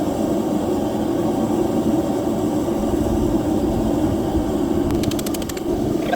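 A forge running with a steady rushing noise, its burner or blower going at a constant level. About five seconds in comes a quick run of faint, sharp clicks.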